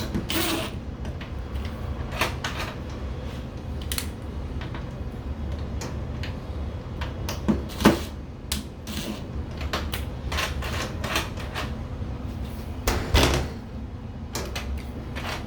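Irregular clicks and knocks of deadbolt lock hardware being shifted on the door and its screws tightened by hand, the sharpest knocks about eight seconds in and near thirteen seconds. A steady low hum runs underneath.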